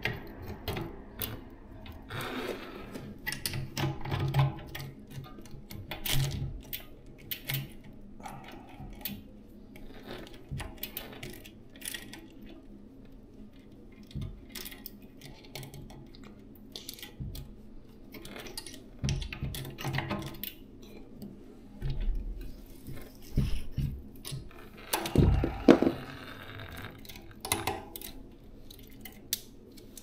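Irregular metallic clinks and clicks of a road bike's rear cassette sprockets and removal tools being handled as the cassette is taken off the wheel, with the loudest clanks a few seconds before the end.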